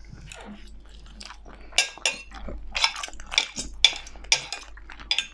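Close-miked chewing of a mouthful of lasagna, with a metal fork and knife clicking and scraping on a ceramic plate. A string of sharp clicks comes from about two seconds in.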